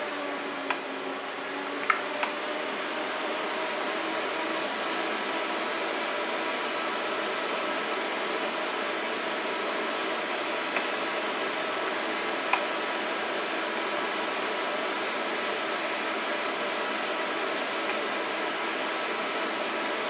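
Computer fans whirring, with a few steady faint tones in the noise; the sound swells a little about a second in and then holds steady. A few sharp clicks come as settings are changed. The fans are run from the Asus ROG Crosshair VI Hero's fan headers and keep ramping up and down whatever the setting, which the owner suspects is a BIOS fault.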